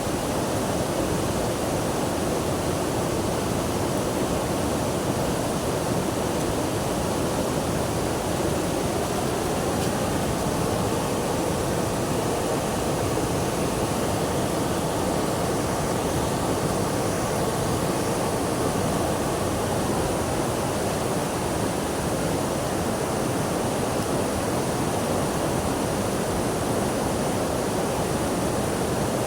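Steady rush of running water, even and unbroken, without the rise and fall of waves.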